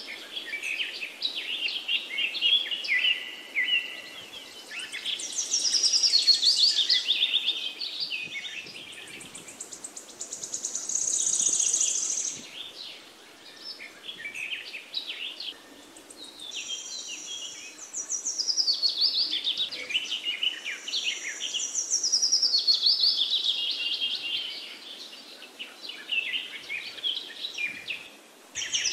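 Songbirds chirping and singing in many overlapping high-pitched phrases and quick trills, swelling and fading in bouts a few seconds long, over a faint steady background hiss.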